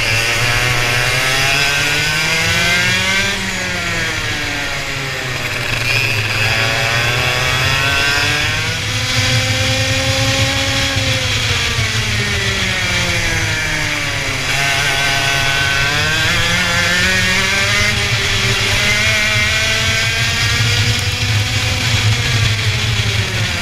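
Racing engine accelerating and slowing through corners: the engine note climbs and drops several times over a steady low drone.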